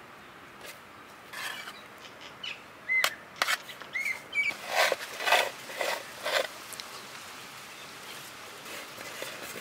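A spoon and a knife scrape and tap while whipped cream is spread over a cake on a metal tray: short scrapes and clicks, busiest about five to six and a half seconds in. A few short bird chirps sound in the background.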